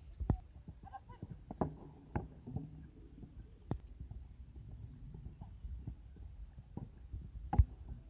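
Wind rumbling on the microphone, with a few scattered dull thumps of a horse's hooves on turf; the loudest thump comes near the end.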